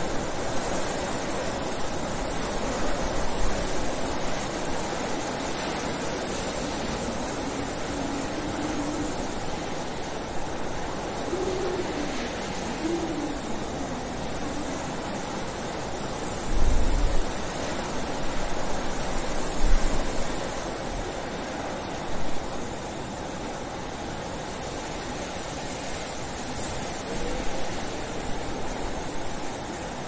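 Blizzard wind blowing steadily, with a low howl that wavers up and down in pitch for a few seconds in the middle. A few heavier low gusts come past halfway.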